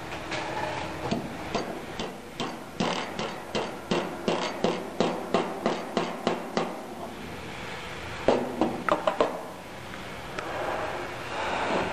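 Hammer tapping a steel bearing tool set on a bicycle rear hub, driving a cartridge bearing. The taps come about two or three a second for some seven seconds. After a short pause there is a quick flurry of several harder taps.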